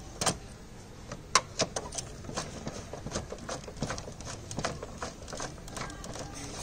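Irregular clicks and knocks of plastic parts as the plastic control-box housing of a Panasonic split AC indoor unit is handled and set into place over the blower motor, with one sharper knock about a second and a half in.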